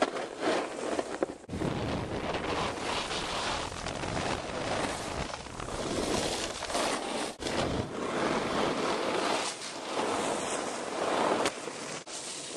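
Wind rushing over the camera microphone, swelling and easing unevenly, with a few brief dips.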